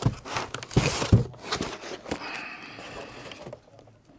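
White foam packing blocks knocking and rubbing against a cardboard box as a boxed radio transceiver is lifted out, with several sharp knocks early on, then scraping with a faint squeak.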